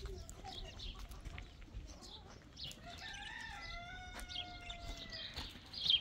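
A rooster crows once about three seconds in: a short rising note, then a long held call lasting about two seconds. Faint chirps of small birds sound around it, and a brief sharp sound comes right at the end.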